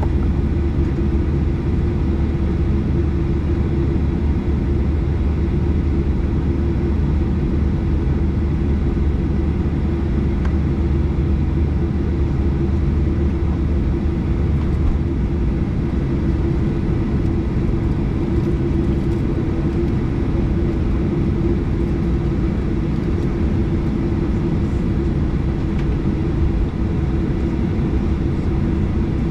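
Steady cabin noise inside a Boeing 737-800 on the ground: a constant hum with a held drone, from the aircraft's engines and air systems. The deepest part of the hum drops away about halfway through.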